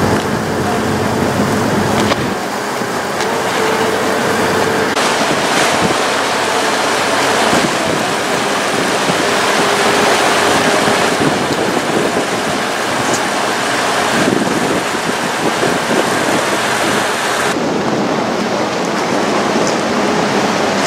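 Wind buffeting the microphone and water rushing past a moving motorboat, a steady loud noise. It changes abruptly twice, about two seconds in and near the end, where it turns duller.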